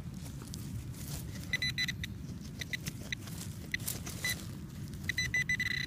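Handheld metal-detector pinpointer chirping in short, high beeps as it probes the dug hole, signalling the buried lead bullet close by; the beeps come in scattered clusters and run into a longer string near the end. Loose soil scraping and rustling under the hand and probe.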